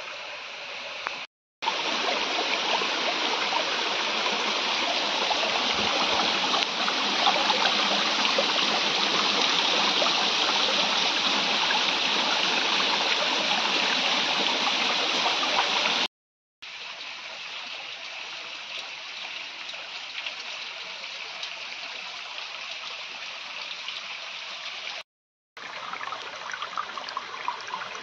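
Water from a small forest waterfall running over rocks in a shallow stream: a steady rush. It cuts out for a moment three times and is softer in the second half.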